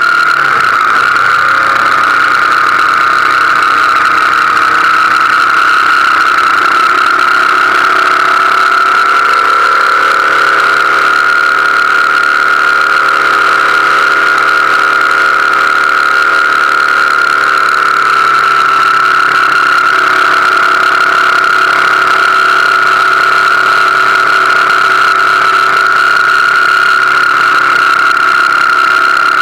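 BMW R1200GS Adventure motorcycle's boxer twin engine running at a steady highway cruise, its note drifting slightly up and down. A loud, steady high-pitched hum sits over it.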